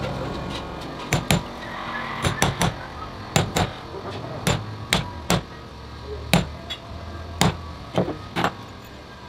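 Irregular sharp knocks and taps from hand work on a Denso alternator being reassembled, about fifteen strikes over nine seconds, some in quick pairs, over a low steady hum.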